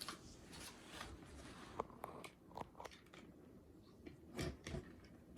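Faint crunching and scraping as a cardboard box and a box cutter are handled, with a few short sharp clicks.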